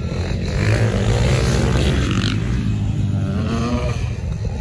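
Dirt bike engines running and revving on a motocross track, the pitch rising and falling as the bikes ride the course.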